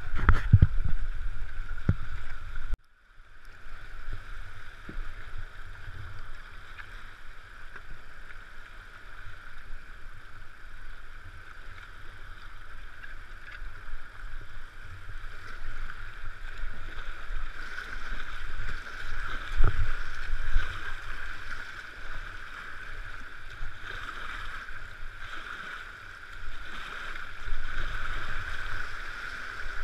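Whitewater rapids of a swollen river rushing steadily around a kayak, with paddle splashes and a low rumble underneath. There are loud knocks at the very start and a single sharp knock about twenty seconds in.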